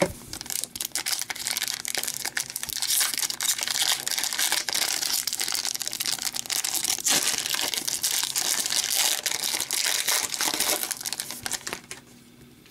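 Crinkling and tearing of the plastic wrapper of a 2014-15 Upper Deck AHL hockey card pack as it is ripped open by hand: a dense run of crackles that stops shortly before the end.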